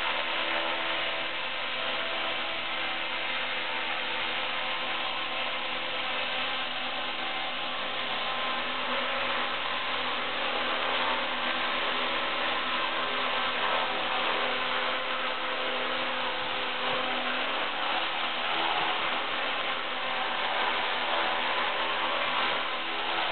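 Esky Honeybee King 2 electric RC helicopter hovering close by: a steady whine of motor and gears with the whir of the spinning rotor blades.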